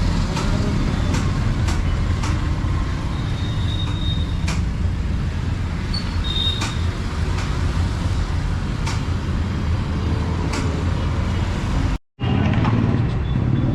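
Steady low rumble of motor vehicles, with scattered sharp clicks and taps. A short dropout about twelve seconds in, after which the same rumble resumes.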